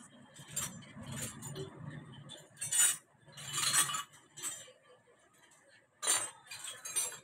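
Metal hand tools and small metal parts clinking and knocking in a series of separate short clinks.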